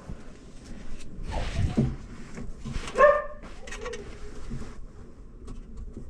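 A dog barks once, loud and short, about three seconds in, with rustling and handling noise before it and a few faint clicks near the end.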